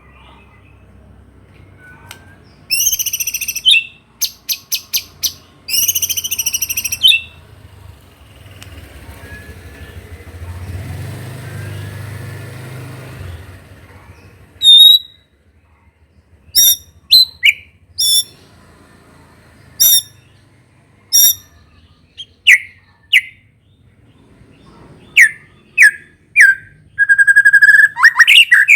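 White-rumped shama (murai batu) singing, its song filled with canary-like phrases: two bursts of fast, high trills early on, then loud separate whistled notes and sharp chips, ending in a held whistle. A low rumble swells and fades in the middle.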